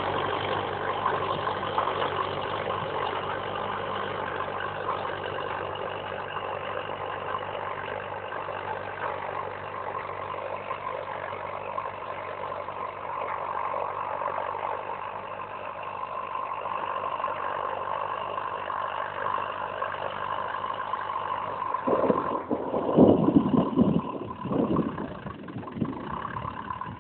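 Farm tractor's engine running steadily under load while pulling a 13-tine duck-foot cultivator through the soil, growing a little fainter as it draws away. Near the end, a few loud, irregular bursts of rumbling noise cut across it.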